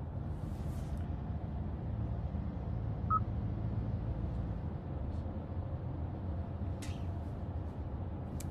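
Steady low rumble of a car on the move, heard from inside the cabin, with one short electronic beep about three seconds in and a few brief soft hisses.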